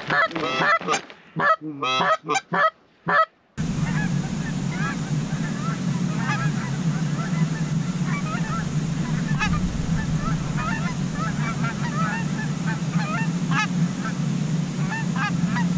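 Canada geese honking: loud, close honks in the first few seconds, then an abrupt change to many fainter honks from a flock in the air, over a steady low hum.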